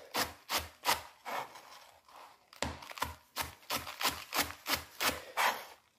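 Chef's knife finely slicing iceberg lettuce on a chopping board in steady, even strokes, about three a second, with a brief pause about two seconds in.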